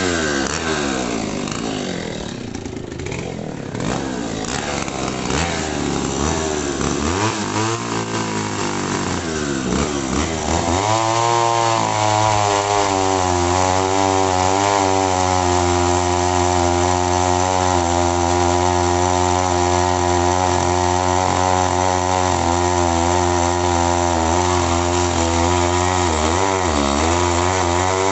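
Two-stroke chainsaw engine running. Its revs rise and fall for about the first ten seconds, then hold at a steady high pitch, with a brief dip a couple of seconds before the end.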